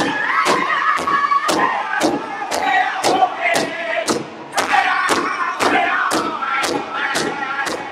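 Northern-style powwow drum group: several men striking one large powwow drum in unison, about two beats a second, while singing a high-pitched chant together.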